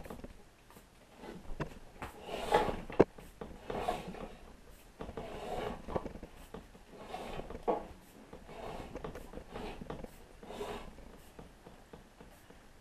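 Small plastic spring clamps being handled and snapped onto a subwoofer's basket to hold the newly glued spider down: irregular rubbing and clattering, with a sharp click about three seconds in.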